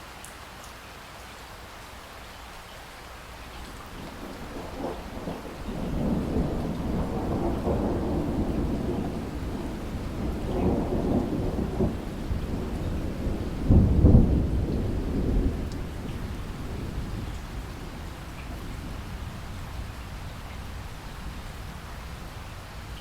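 Steady rain with a long roll of thunder. The rumble builds a few seconds in, swells, peaks in one loud crack about halfway through, then dies away while the rain carries on.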